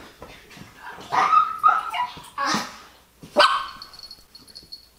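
A dog barking, four loud short barks between about one and three and a half seconds in.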